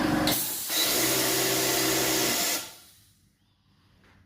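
Electric appliance motor with a fan, running with a steady whir and hum, switched off about two and a half seconds in and winding down to quiet, then switched on again abruptly at the very end.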